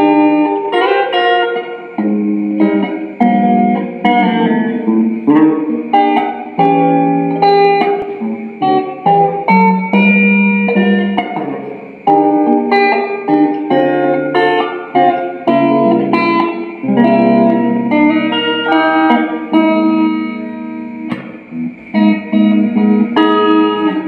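Stratocaster-style electric guitar played through a small amplifier: phrases of picked single-note runs and chords with short gaps between them.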